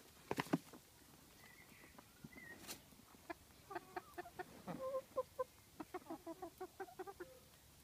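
Domestic chickens clucking in a run of short, quick notes, a few a second, through the second half; a few sharp knocks near the start.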